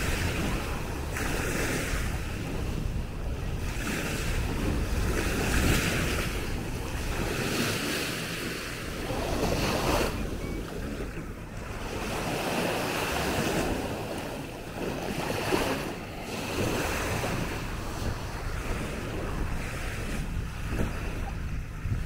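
Small Baltic Sea waves lapping and washing onto a sandy shore, swelling and easing every few seconds, with wind rumbling on the microphone.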